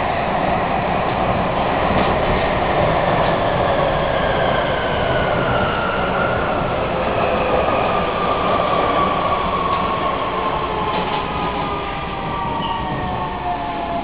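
Inside a Siemens type V Vienna U-Bahn metro car running through a tunnel: a steady rumble of wheels on rails, with the electric traction drive's whine of several tones falling slowly in pitch as the train slows into a station.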